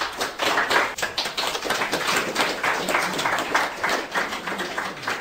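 Audience applauding: many hands clapping in a dense patter that starts all at once and begins to die away near the end.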